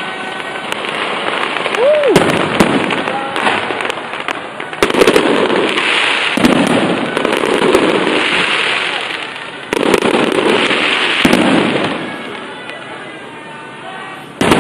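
Fireworks going off: a run of sharp bangs a second or two apart, with dense crackling in between.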